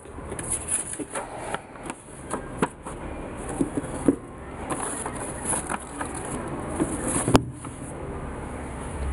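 Handling noise from hands moving knit sneakers in a cardboard shoebox: scattered soft rustles and light taps, with one sharp click about seven seconds in.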